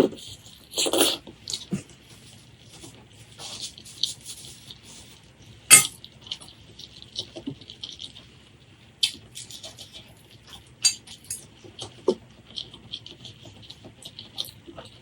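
Close-miked eating sounds: irregular wet chewing and mouth smacks, with a louder burst about a second in. A sharp click, like a utensil on a dish, comes near the middle and is the loudest sound.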